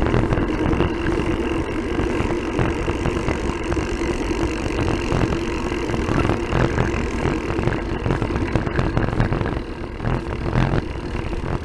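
Wind rushing over the microphone of a body-mounted camera while riding a bicycle along a paved street, a rumbling buffet with tyre-on-asphalt noise and a steady low hum under it.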